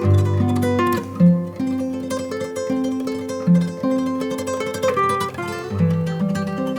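Background music: an acoustic guitar-led instrumental of plucked notes over a bass line.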